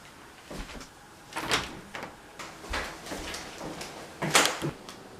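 A handful of short knocks and clunks with some rustling between them. The loudest comes a little over four seconds in.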